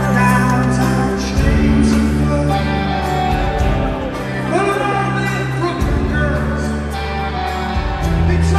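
A live pop-rock band playing, with a male lead voice singing over electric bass and drums. The bass holds long notes that change every second or two.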